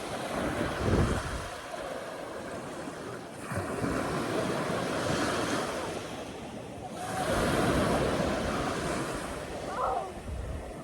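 Rushing noise of wind and surging water, swelling and easing every few seconds, with wind buffeting the microphone.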